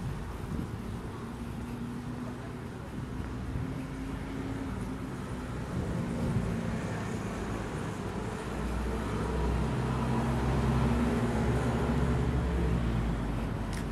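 Street traffic on a city road: a steady low rumble of passing cars, with one vehicle's engine growing louder and going by about eight to twelve seconds in.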